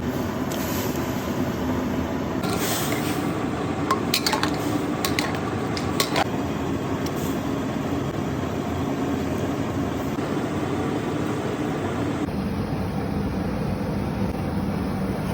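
Cooking sounds: a steady rushing noise throughout, with a few sharp clinks of a metal utensil against a pot about four to six seconds in.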